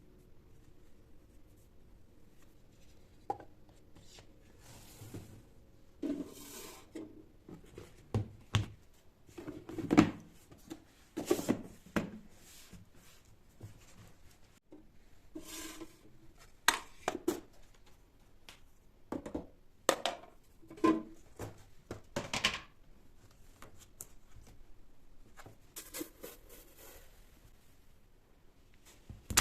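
Household handling sounds: scattered knocks, clicks and short rustles as objects are picked up and set down, the loudest knock about ten seconds in.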